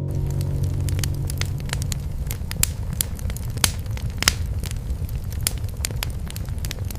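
Wood fire in a fireplace crackling, with scattered sharp pops over a low steady rumble of the flames; three louder pops come near the middle. A tail of soft music fades out in the first second or two.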